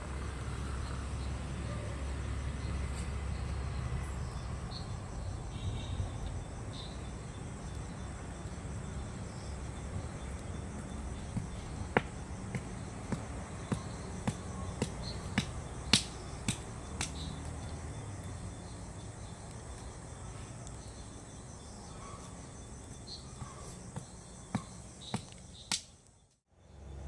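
Outdoor night ambience: a steady low hum with faint, high insect chirping, and scattered sharp clicks, most of them a bit under halfway through. The sound cuts out briefly near the end.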